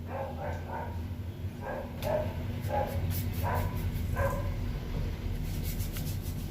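An animal's short calls, repeated about eight times in the first four and a half seconds, over a steady low hum.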